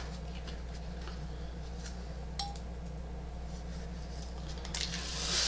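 Light handling of a laser-cut, pre-fused fabric applique piece: a couple of faint clicks, then a short rustle of fabric and paper backing about five seconds in, over a steady low hum.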